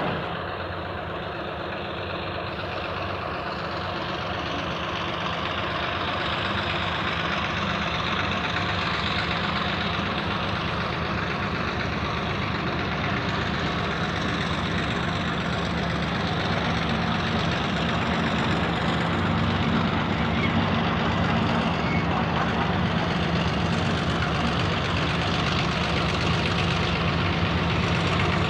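Y class diesel-electric locomotive Y159's six-cylinder EMD 645-E engine running steadily as the locomotive draws nearer, growing gradually louder.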